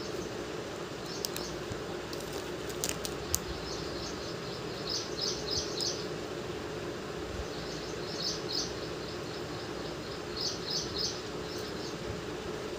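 Short high chirps in quick groups of three or four, recurring every couple of seconds, over a steady low hum. A few light clicks sound in the first few seconds.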